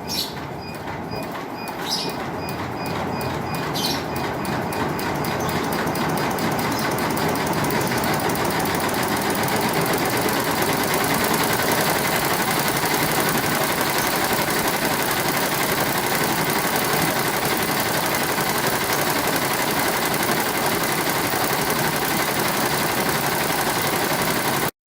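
Single-head embroidery machine running and stitching at a fast, even rate. It builds up over the first several seconds, then runs steadily.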